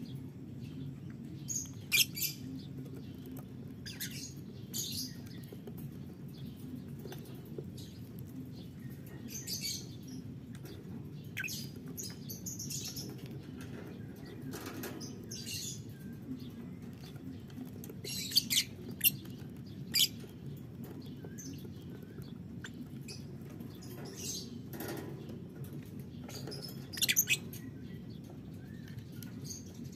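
Lovebirds giving short, high-pitched chirps and squeaks at irregular intervals, a few of them sharper and louder, over a steady low background hum.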